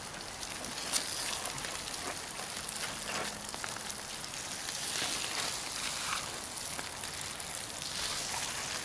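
Brook trout in butter sizzling inside foil packets set on hot charcoal briquettes: a steady crackling hiss. Crinkling foil and a few sharp clicks as the packets are handled and one is lifted off the coals.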